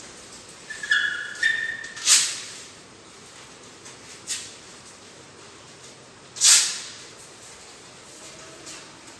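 Velcro wrist straps of cricket batting gloves ripping and fastening as the gloves go on: two loud, short rasps about two seconds in and again about six and a half seconds in, with a fainter one between. A brief high squeak comes just before the first rasp.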